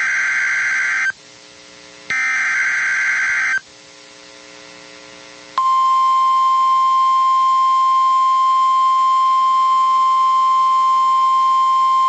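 Emergency Alert System SAME header: raspy data bursts, one ending about a second in and another about two seconds later lasting a second and a half. About two seconds after that, the steady single-pitch NOAA Weather Radio 1050 Hz warning alarm tone starts and holds.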